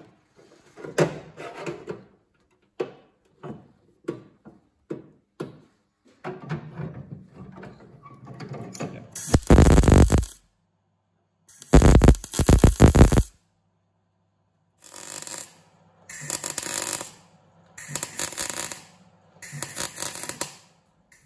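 Welding new sheet-steel floor and sill panels into an MG Midget body with a gas-shielded MIG welder: crackling arc bursts, two long, loud runs near the middle, then four tack welds of about a second each near the end. Before the long runs, short clicks and clatter from setting the locking-plier clamps.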